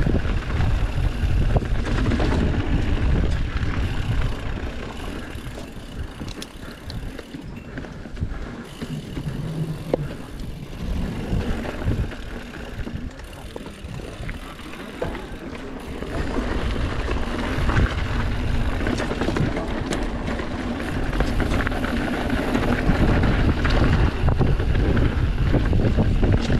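Mountain bike riding down a dirt trail: wind buffeting the GoPro microphone, with tyre noise and scattered clicks and rattles from the bike over bumps. Quieter through the middle, louder again from about 16 seconds in.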